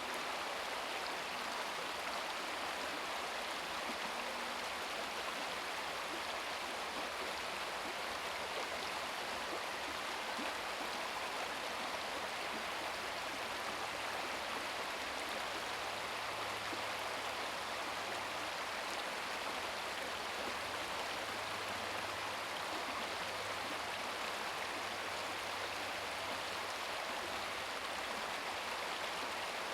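Babbling brook: a steady, even rush of running water.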